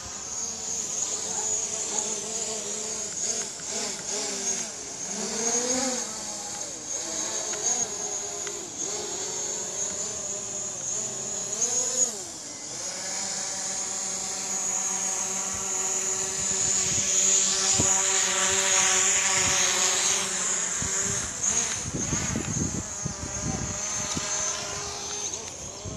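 DJI Mavic Pro quadcopter's propellers buzzing in flight, a high whine whose pitch dips and rises as it manoeuvres. A few low rumbles come near the end.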